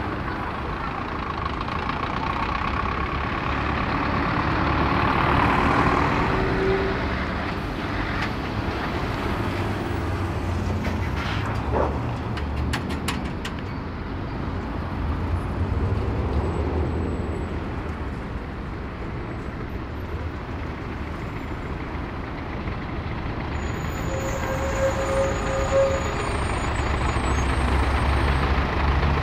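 Road traffic passing close by: cars and lorries driving past with engine rumble and tyre noise, swelling as each heavy vehicle goes by. A short squeal sounds about three-quarters through, and near the end a KamAZ concrete mixer lorry's diesel engine grows loud as it comes up close.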